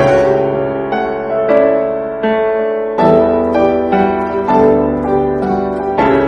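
Piano music, chords struck about once a second and left to ring.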